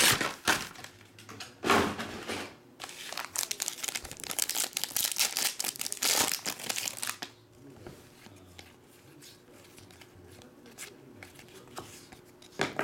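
Foil wrapper of a 2018 Panini Certified football card pack being torn open and crinkled, in repeated bursts of crinkling and ripping over the first seven seconds or so. After that only faint handling sounds as the cards are drawn out, with a short rustle near the end.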